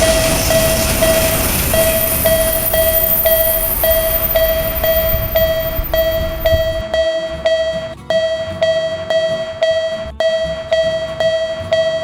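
Japanese railroad crossing warning bell ringing in a steady ding-ding rhythm, about three strikes a second. A passing train rumbles under it for the first six seconds, then fades out, leaving the bell ringing on its own.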